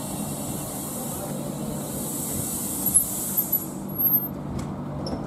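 Duewag GT6-70D/N tram rolling in and braking to a stop at a platform, over a steady low hum. A high hiss lasts about four seconds and then cuts off, with a few short clicks and knocks near its end as the tram comes to rest.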